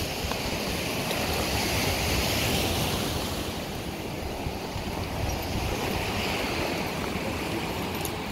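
Ocean surf: a steady rush of breaking waves that swells and eases, loudest twice in a few seconds.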